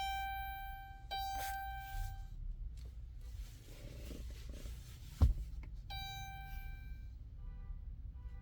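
Electronic beep tones confirming a step in key programming: two long beeps at the start, another about six seconds in, then a run of short, quicker beeps near the end. A single sharp knock sounds a little after five seconds.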